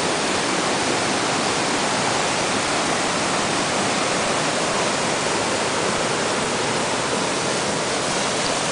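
A mountain stream rushing and splashing over rocks at a road ford: a steady, unbroken rush of water.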